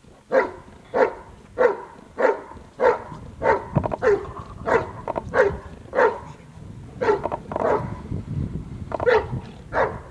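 Hovawart barking steadily and repeatedly at a helper holding a bite sleeve, about one and a half barks a second, with a pause of about a second late on: the bark-and-hold of protection work.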